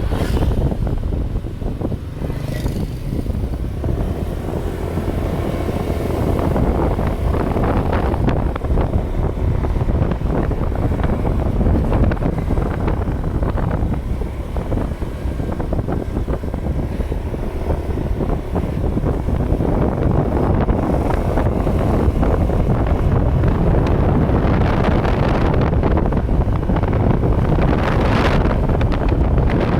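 Heavy wind buffeting the microphone: a loud, steady low rumble with irregular crackle.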